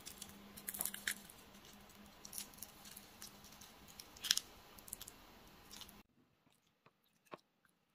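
Crisp fried breading of a popcorn chicken piece crackling and crunching as it is torn apart by hand, with a few sharper crunches, the loudest about four seconds in. The last two seconds are near silent.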